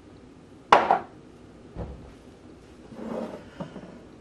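Kitchen items handled on a countertop: a sharp knock of something set down less than a second in, a duller knock near two seconds, and a brief rubbing sound a little after three seconds as a glass loaf pan is shifted.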